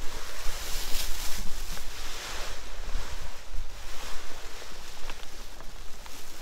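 Mylar emergency sleeping bag crinkling and rustling in irregular bursts as someone climbs out of it in a hammock, over a low rumble of wind on the microphone.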